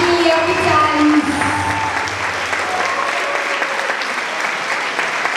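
Audience and performers applauding: steady, dense clapping, with a few voices heard over it in the first couple of seconds.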